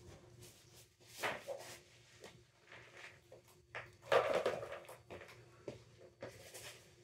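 Plastic litter scoop scraping and rustling through paper bedding and hay in a plastic rabbit litter box, in several short bouts, the loudest about four seconds in.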